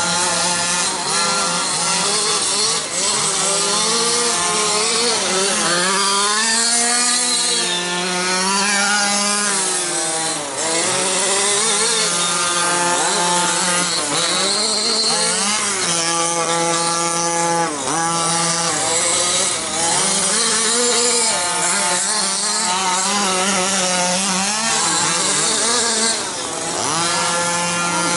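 Small two-stroke petrol engines of 1/5-scale gas RC cars revving up and down as they race laps, the pitch rising and falling again and again, at times two engines overlapping.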